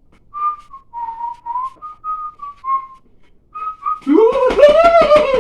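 A person whistling a short tune of a dozen or so notes. About four seconds in, it gives way to a louder, drawn-out vocal cry that rises and falls in pitch.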